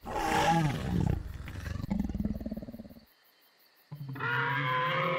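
Dinosaur roar sound effect: a rough roar falling in pitch for about three seconds, then after a short silence a second, steadier drawn-out cry starting near the end.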